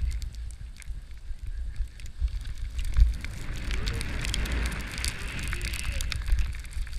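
Skis sliding and scraping through chopped-up snow, with scattered crackling clicks; the scraping hiss grows louder from about three and a half seconds in. Wind rumbles steadily on the microphone underneath.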